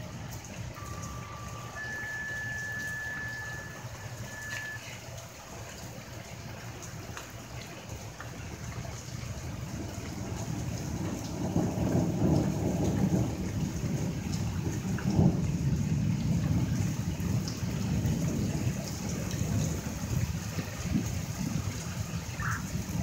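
A fire-dispatch two-tone page: a short steady tone, then a longer, higher one, then a brief blip. From about eleven seconds in, long, low thunder rumbles over steady rain and wind.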